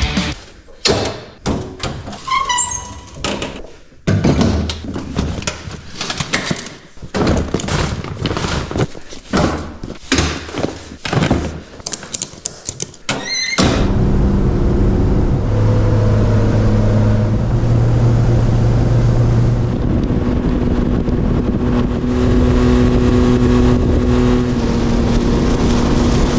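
A quick run of thuds, knocks and rattles from gear being packed, with a short squeak twice. About halfway through, the Honda Acty mini truck's engine starts running steadily as it drives, its pitch stepping up and down a few times.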